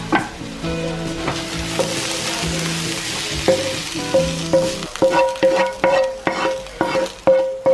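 A wooden spoon scrapes hot sautéed vegetables out of a non-stick frying pan into a glass dish, with the hiss of the vegetables still sizzling. Background music of plucked strings runs underneath and becomes the loudest sound from about halfway through, as a steady run of plucked notes.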